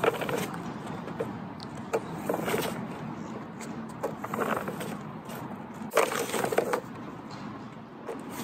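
Nerf Elite Dart Rover, a plastic push sweeper, rolled over asphalt through a mix of foam darts and Rival balls: a plastic clatter and crunch that comes in several bursts with sharp clicks as the tines catch the ammo. The mixed ammo jams its pockets.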